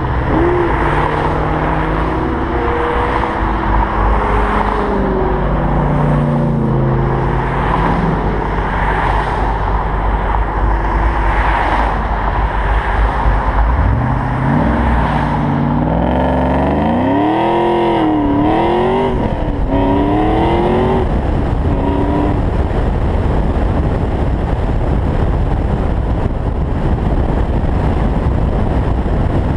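Convertible driving top-down at highway speed: steady wind rush and road noise with a car engine running under it. From about halfway through, the engine note climbs and falls several times in hard revs, then only the steady wind and road noise remain near the end.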